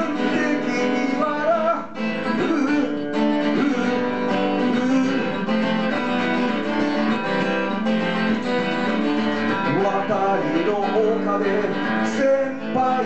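Acoustic guitar strummed steadily as a solo song accompaniment, an instrumental passage without singing.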